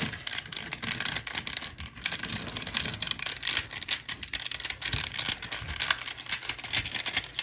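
Plastic parts of a Transformers Prime Voyager class Ultra Magnus action figure clicking and rattling in quick, irregular taps as its panels are folded and pressed onto their tabs during transformation.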